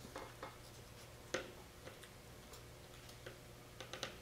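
Scattered light clicks and taps of plastic spring clamps being opened and fitted by hand, the sharpest about a second and a half in and a quick cluster near the end.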